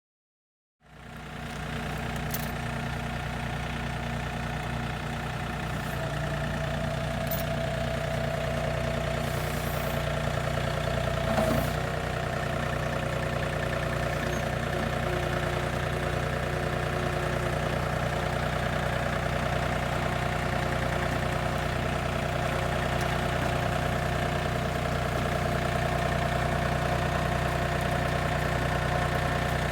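An engine running steadily at constant speed, cutting in suddenly about a second in, with a few faint clicks and one louder knock about eleven seconds in.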